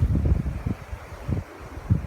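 Wind buffeting the microphone in irregular low gusts, over the wash of ocean waves.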